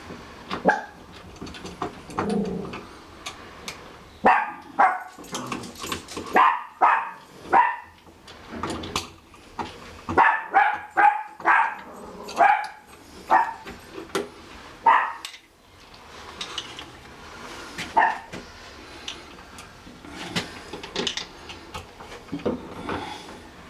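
Small dog, a chihuahua, barking over and over in short sharp yaps, in quick runs of about two a second, then more spaced out in the second half.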